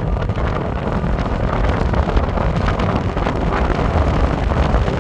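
Steady, loud wind rushing over the microphone as the electric bike rides at full speed on the throttle.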